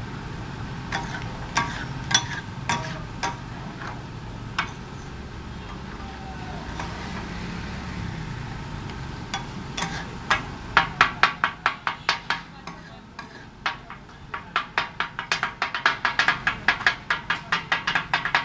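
Metal spatulas striking a flat steel tawa griddle as chicken tawa masala is chopped and mixed. There are a few scattered clanks at first, then from about ten seconds in a fast, rhythmic clatter of ringing metallic strikes, several a second, over a steady background noise.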